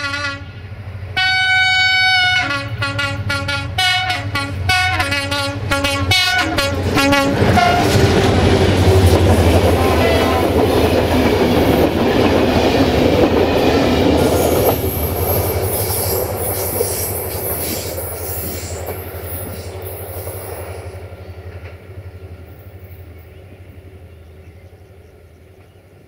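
Locomotive 65-1300-6's multi-tone horn sounded in a string of blasts, one longer blast and then quickening short toots, as the train approaches. A passenger train of coaches then rolls past with wheels clattering on the rails, and the sound fades away as it recedes.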